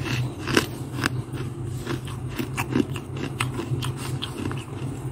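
Mouthful of freezer frost being bitten and chewed close to the microphone: a run of irregular, crisp crunches, several a second, over a steady low hum.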